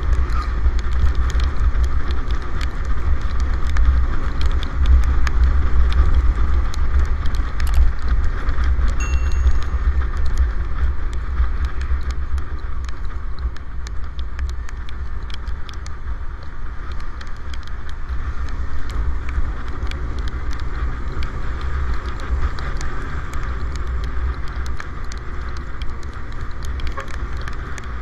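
Wind buffeting the microphone of a camera on a moving scooter, a heavy steady rumble with road and tyre hiss on a wet road. Scattered sharp ticks run through it, fitting raindrops hitting the camera in a light drizzle.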